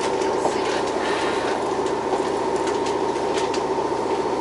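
Kobe Electric Railway 5000 series train standing at a station with its on-board equipment running: a steady hum with a rapid, even low throb, typical of its air compressor.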